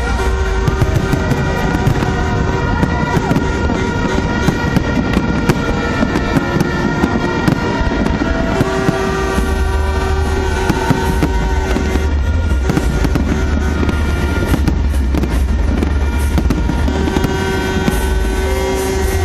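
Fireworks going off in rapid crackles and pops, over loud music with held notes and a heavy bass.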